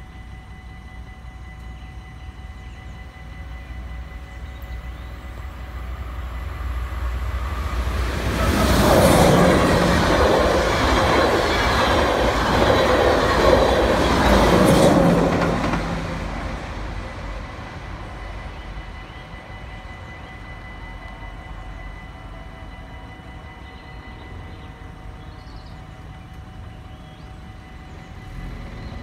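NS DD-AR double-deck electric passenger train passing over a level crossing. Its rumble and wheel noise build from about six seconds in, stay loud for about eight seconds as the train goes by, then fade after the last car passes. The crossing's warning bell rings steadily underneath.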